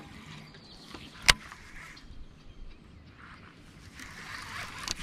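Baitcasting reel being worked during a lure retrieve, with one sharp click a little over a second in against a faint, even background.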